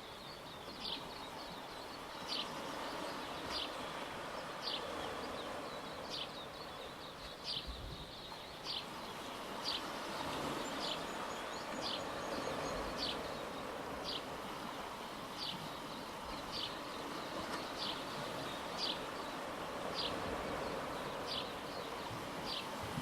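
A short, high chirp repeats steadily, about once every second and a quarter, over a continuous wash of water and waves.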